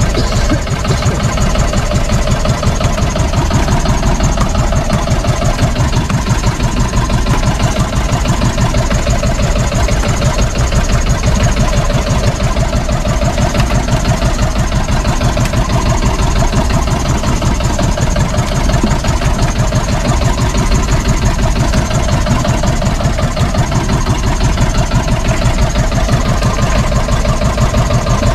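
Boat engine of a motorized outrigger bangka running steadily at low speed, a loud, close, even chugging that does not change.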